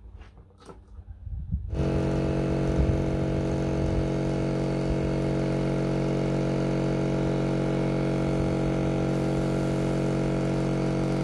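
Small portable electric piston air compressor starting up about two seconds in and running steadily, feeding air through a hose into a tractor rear tyre's inner tube. A few light knocks come just before it starts.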